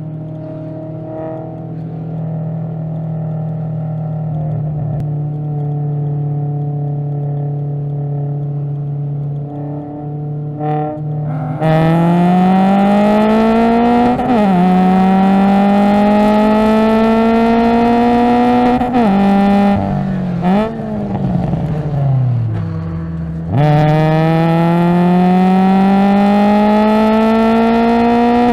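ST5-class race car's engine heard from inside the cabin, running at steady part-throttle revs, then going to full throttle about twelve seconds in for the race start. The revs climb, drop at an upshift, climb again, fall with quick blips of the throttle on downshifts around the middle, then climb steadily again under full throttle towards the end.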